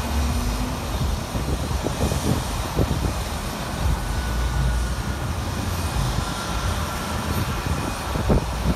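Airliner's jet engines running while it sits on the runway: a steady low rumble with a faint high whine.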